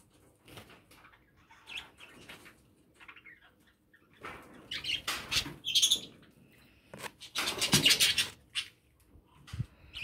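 Budgerigar chirps and chatter, loudest in two stretches around the middle and later on, over small clicks of seed being cracked in a metal feed bowl.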